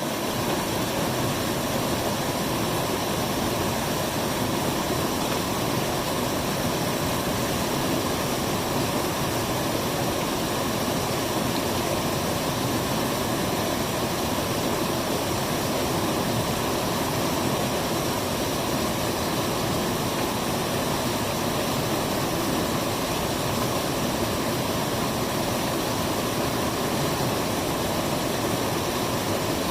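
Waterfall rushing: a steady, even noise that holds at one level throughout.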